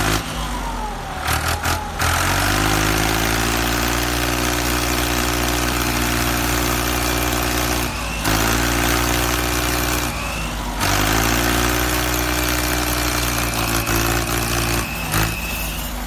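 Vehicle engine running at a steady idle over a constant hiss. It drops out briefly twice and picks up again, with a faint rising whine before each break.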